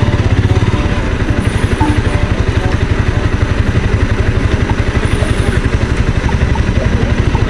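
Honda CBR250R's single-cylinder engine running at low revs in slow traffic, a steady, rapid, even pulsing.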